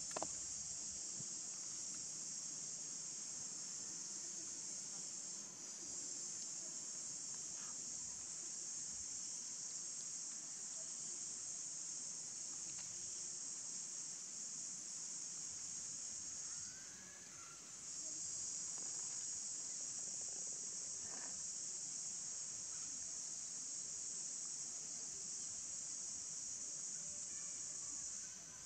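Steady, high-pitched insect chorus, dropping out briefly twice.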